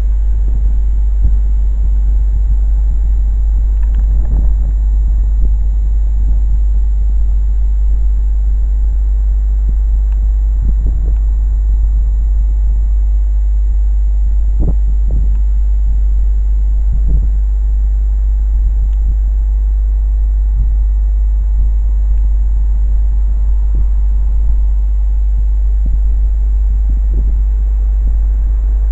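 Wind buffeting the microphone: a loud, steady low rumble with gusts coming and going, over a faint steady hum.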